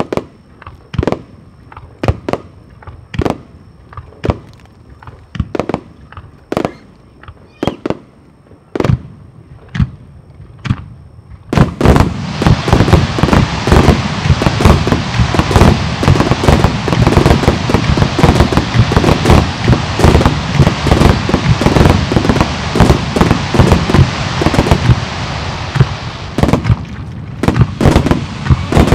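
Starmine of aerial firework shells: single shell bursts going off about one or two a second, then, about twelve seconds in, a sudden dense barrage of overlapping bangs and crackle that carries on without a break.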